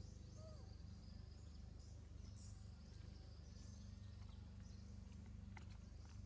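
Faint outdoor ambience: small birds chirping high and thin and insects, over a low steady hum, with a few faint clicks near the end.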